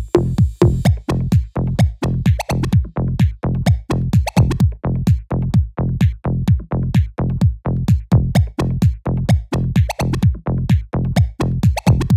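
Electronic techno-house club beat made in FL Studio: a steady, driving drum-machine kick pattern over a deep bass line that pumps with each beat, with no vocals.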